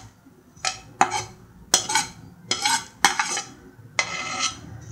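A plate and utensil clinking and scraping against the rim of an aluminium pot as fried grated coconut is knocked off the plate into the curry: about six short clatters, a little under a second apart.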